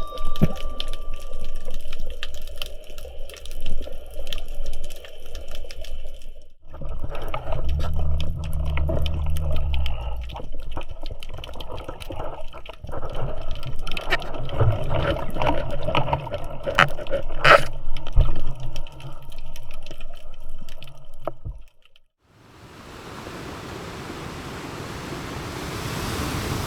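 Sea water sounds full of crackling clicks and low thuds, which cut off abruptly about three quarters of the way through. After a moment of silence a steady hiss of surf and wind rises.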